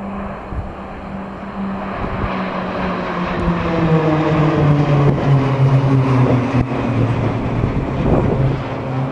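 A formation of Pilatus PC-9/A single-engine turboprop trainers flying overhead. The propeller drone swells to its loudest a few seconds in and drops in pitch as the aircraft pass over.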